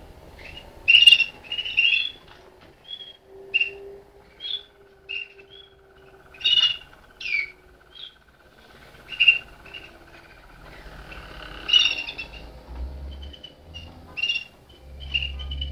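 Malinois (Waterslager) song canaries singing: a string of short, sharp chirping notes, and beneath them a low, fast rolling trill held for about seven seconds from about four seconds in.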